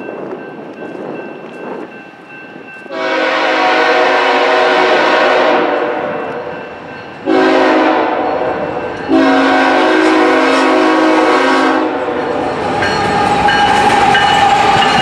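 Diesel freight locomotive's multi-note air horn blowing for a grade crossing: a long blast about three seconds in, then two more blasts close together in the middle. Near the end the lead locomotives pass close by, their engines and wheels loud, with a steady whine.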